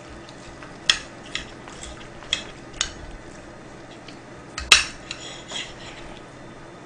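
Table knife sawing through a bone-in steak and scraping against the plate: a handful of short, sharp scrapes and clicks, the loudest about two-thirds of the way through.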